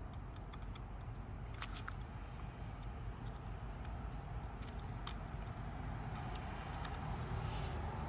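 Aerosol lubricant hissing faintly out of an extension straw onto the blower motor's shaft bearing, a bearing that sounded dry when turned by hand. A few light clicks about a second and a half in.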